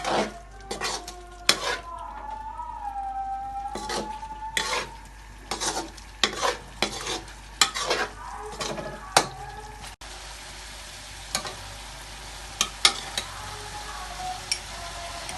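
A spoon stirring and scraping in a pan of sizzling chicken jalfrezi, with irregular sharp knocks against the pan over a steady frying hiss. After about ten seconds the knocks thin out to a few.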